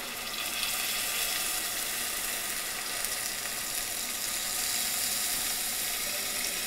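Water poured slowly in a thin stream from a steel bowl into a pan of hot oil and reduced vinegar with partridge, hissing and sizzling as it goes in. The hiss swells about half a second in and then holds steady.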